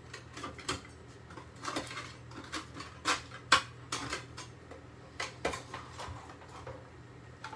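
Metal utensil clinking and scraping against a baking dish and a ceramic plate as a broccoli and cheese bake is served out: a scattered run of light clinks, the sharpest about three and a half seconds in.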